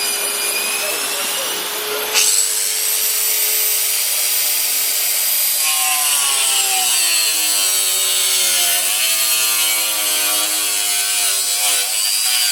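Angle grinder with a Bosch Carbide Multi Wheel running at high speed with a high-pitched whine, with a sharp knock about two seconds in. From about six seconds in it cuts into wood, its pitch dropping and recovering as the cut loads it.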